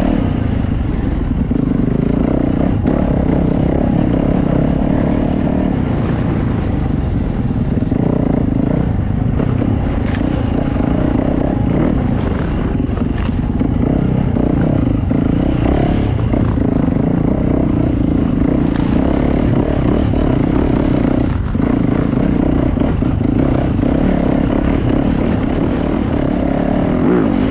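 Yamaha YZ450F four-stroke single-cylinder dirt bike engine running at a fairly steady throttle, heard from on board while riding single-track, with a few short clatters over the rough trail.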